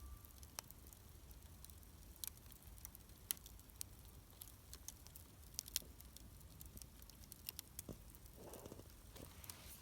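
Wood fire crackling quietly, with sparse, irregular small pops and snaps and a brief soft shuffling sound near the end.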